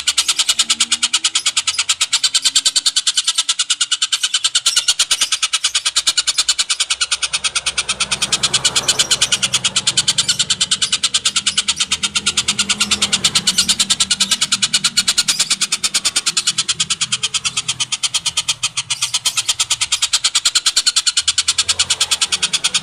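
Tengkek buto bird's call: a loud, fast, unbroken rattling trill of rapid, evenly spaced clicks. A faint low hum sits under it at times.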